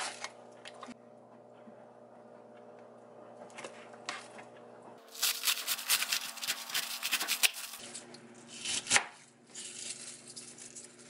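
Kitchen knife cutting through a head of cabbage on a wooden cutting board: a quick run of crisp, crunching cuts about five to eight seconds in, one loud cut near nine seconds, then more chopping. In the first few seconds, faint rustles and clicks of plastic food packaging being handled.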